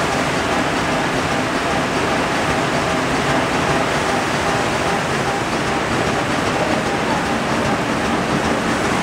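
Muller Martini PrimaPlus saddle stitcher running: a loud, steady, dense mechanical clatter as signatures are carried along the gathering chain and through the stitching heads.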